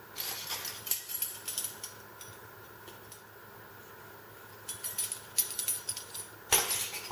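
Kitchenware being handled: small clinks and taps of a bottle, measuring cups and the blender jar's lid, in two clusters with a quiet spell between, then a short louder rustling clatter near the end.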